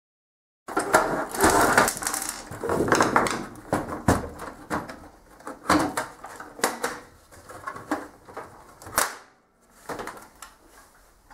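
Plastic side cover of an HP LaserJet 6P printer being worked loose and cracked open by hand: an irregular string of plastic clicks, snaps and scrapes, with a short pause about nine seconds in.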